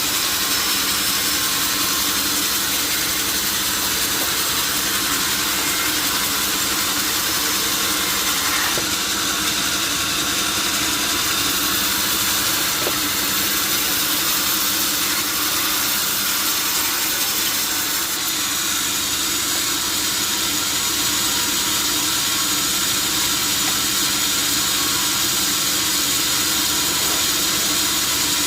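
Powered saw running steadily through a large log, a continuous high-pitched mechanical noise.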